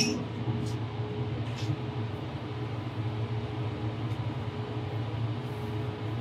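A steady low mechanical hum, with a few faint light clicks as a brass pipe fitting and a pipe wrench are handled at the wellhead.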